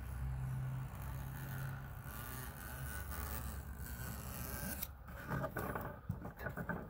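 Window screen glued to a board being cut and trimmed with a small hand tool: a quick run of sharp snipping clicks over the last two seconds. Before it a low steady hum fades out about three seconds in.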